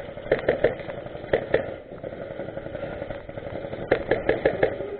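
Airsoft guns firing: a quick string of three sharp shots, two more about a second later, then a rapid string of about six near the end, over a steady hum.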